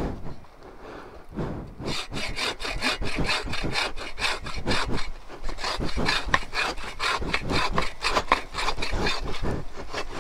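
Wood rubbing and scraping in quick, repeated noisy strokes, starting about a second and a half in: branches being worked through or cut while clearing brush from a trail.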